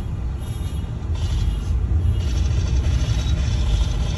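Steady low rumble of a car's engine and tyres, heard from inside the moving car's cabin, growing a little louder about two seconds in.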